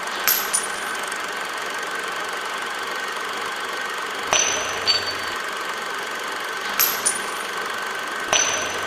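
Brass pistol shell casings clinking on a hard floor: four pairs of short, high, ringing metallic clinks a few seconds apart, over a steady hiss with a thin steady tone.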